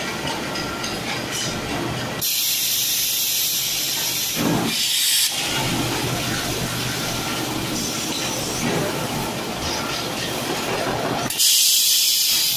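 A horizontal double-ended drum seamer running while it seams the ends onto a steel drum, a steady mechanical clatter. Two loud hisses of compressed air from its pneumatic cylinders break in: one about two seconds in that lasts about three seconds, and a shorter one near the end.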